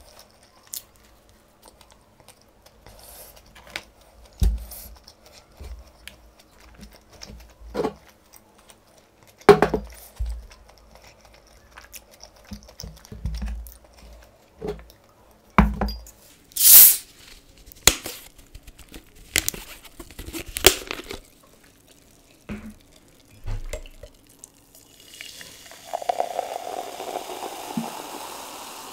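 Close-up mouth sounds of chewing a burger: irregular crisp crunches and smacks, a few of them sharp and loud. About 25 seconds in, cola is poured from a bottle into a glass mug, running and fizzing steadily as it foams.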